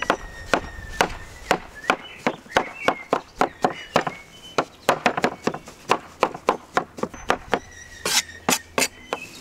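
Cleaver chopping cooked potatoes on a wooden cutting board: a long run of sharp knocks of the blade on the wood, a few strokes a second, coming a little faster about halfway through.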